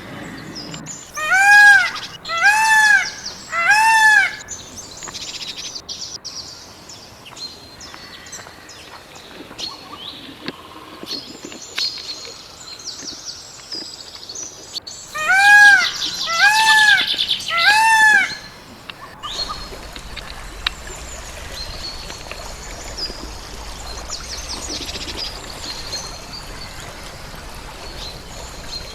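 Peacock calling loudly three times in a row, each call rising and then falling in pitch; a second set of three comes about fifteen seconds in. Small birds chirp faintly throughout.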